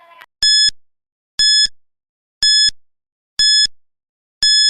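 Quiz countdown timer sound effect: five short, identical electronic beeps, about one a second, ticking off the answer time.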